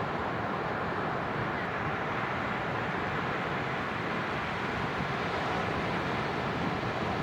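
Ocean surf breaking on a sandy beach: a steady, even rush of noise in which no single wave stands out.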